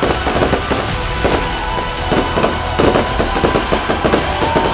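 Aerial fireworks display: a dense, continuous run of bangs and crackling bursts, with music playing underneath.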